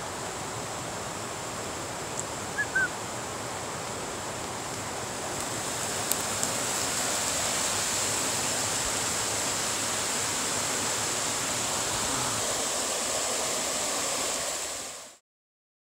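Creek water rushing over rocks in small cascades, a steady wash that grows louder about six seconds in and cuts off shortly before the end. Two short high chirps sound about two and a half seconds in.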